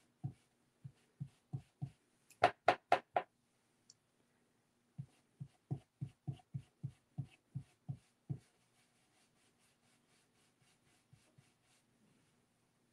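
Sponge ink dauber tapping ink onto a thin wooden die-cut piece on a craft mat: a run of soft, dull taps about three a second. Five louder, sharper knocks come in quick succession around three seconds in, and the tapping stops a little after eight seconds.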